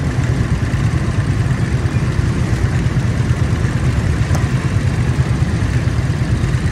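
Motorcycle being ridden: a steady, rough low rumble of engine and rushing wind, with a single brief click about four seconds in.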